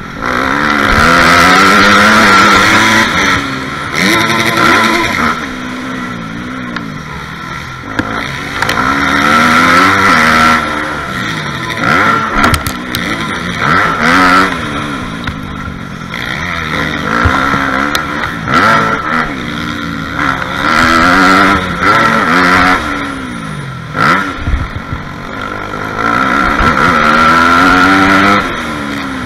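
Dirt bike engine revving up and dropping back over and over as the rider accelerates, shifts and backs off through the track's turns and straights, heard from a helmet-mounted camera.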